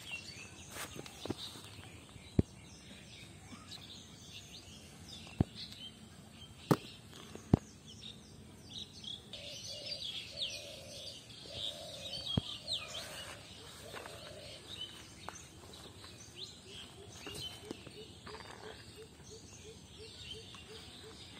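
Birds chirping steadily in the background, with several sharp clicks, the loudest sounds, in the first half. A low rhythmic pulsing comes in during the second half.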